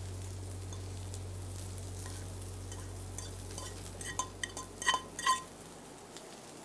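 A frying pan of scrambled eggs sizzling faintly over a low steady hum that fades away after about five seconds. Between about four and five seconds in come several sharp, ringing clinks as the metal pan and a utensil scrape the eggs out onto a ceramic plate.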